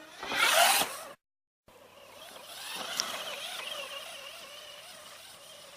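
Whine of the FTX Carnage RC car's brushed electric motor, wavering in pitch as it drives, swelling and then fading away, with one sharp click about halfway. Before it, a loud rushing burst of noise lasting under a second.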